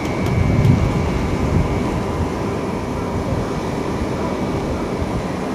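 Steady low outdoor rumble with no clear tone, swelling briefly about half a second in.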